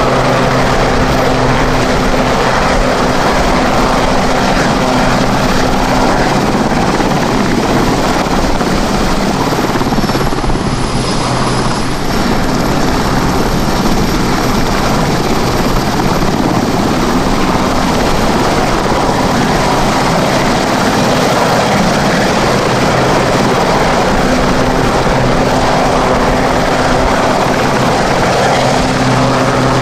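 Westland Sea King helicopter hovering at close range: steady, loud rotor noise over the whine of its twin turboshaft engines, with a steady low hum from the rotor and gearbox.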